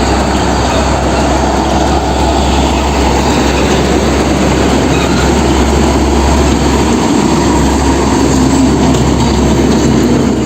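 Loud, steady rumbling vehicle noise with a constant low hum, running without a break and cutting off just after the end.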